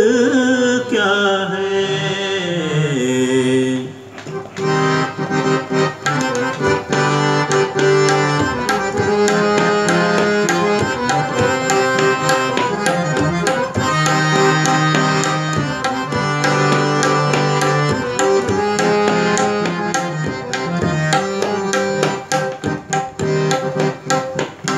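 Harmonium and tabla playing an instrumental interlude between ghazal verses. Near the start a man's held sung note wavers, slides down and ends about four seconds in; from then on the harmonium carries the melody over steady tabla strokes.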